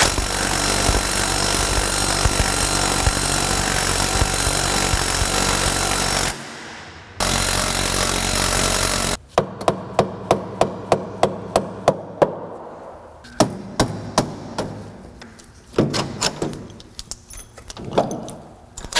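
Impact wrench hammering in long runs, with a short break after about six seconds, as the steering rack's mounting bolts are undone. This is followed by a run of quick, even clicks, about four or five a second, and then a few scattered metal knocks.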